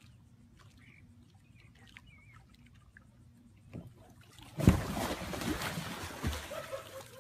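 A person falling from a kayak into the water: a sudden loud splash about two-thirds of the way in, followed by a couple of seconds of splashing.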